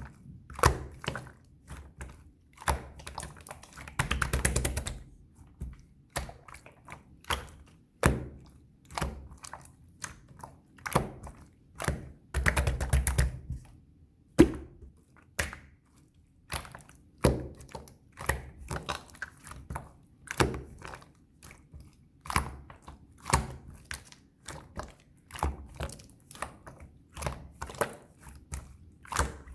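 Slime being squished and pressed by hand, giving a string of sticky clicks and pops. Two denser crackling stretches come about four seconds in and around twelve to fourteen seconds in.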